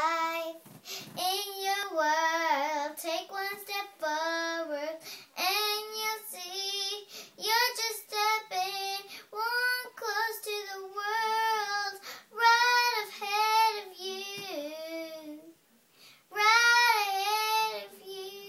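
A young girl singing alone, unaccompanied, in held phrases separated by short breaths, with a brief pause about three-quarters of the way through.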